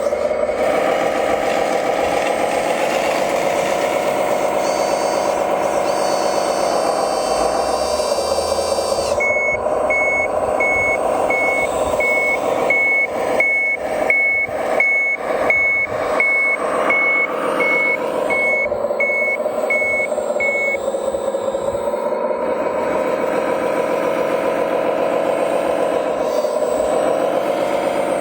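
Steady engine drone of a heavy construction vehicle, with a reversing alarm beeping about twice a second for roughly eleven seconds in the middle.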